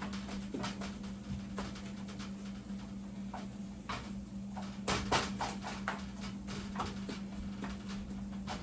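Spoon knocking and scraping against a pot while stirring thick, browning condensed-milk candy mixture, with a cluster of sharp knocks about five seconds in, over a steady low hum.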